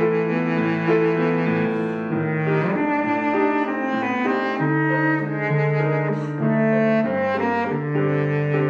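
Baritone saxophone playing a melody with piano accompaniment: long held notes, with a stretch of quicker notes around the middle and long low notes after it.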